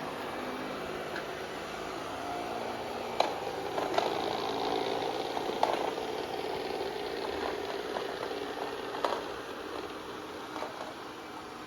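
Amarey A90+ robot vacuum running while cleaning the floor: a steady motor and brush whir, with several sharp clicks and knocks scattered through, the loudest around the middle.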